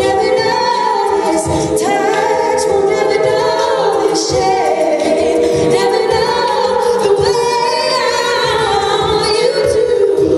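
All-female a cappella group singing in close harmony, several voices holding and moving between sustained chords over a steady low beat kept by vocal percussion.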